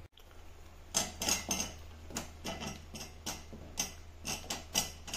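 Apple cherries being dropped by hand from a plastic strainer into a pan of boiling pickle masala: a string of small irregular clicks and plops, about two or three a second, over a steady low hum.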